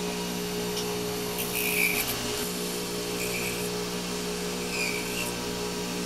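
Small lathe motor running steadily while a hand-held blade scrapes shavings off the spinning iris disc in a few short passes, thinning it down toward its final thickness.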